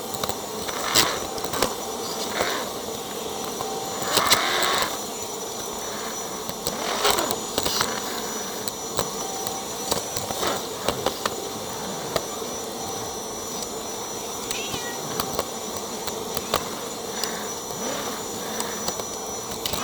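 A vacuum cleaner runs steadily while a cat meows now and then. Scattered knocks and bumps come through along with it.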